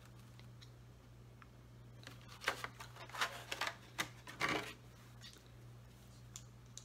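Plastic and cardboard Funko Pop packaging being handled: a few short rustles and clicks near the middle, over a steady low electrical hum.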